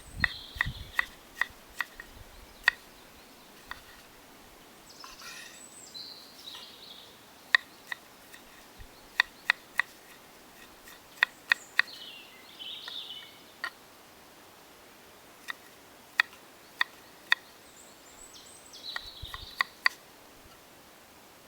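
Birds calling in short phrases every few seconds over a run of sharp, irregular clicks and pops.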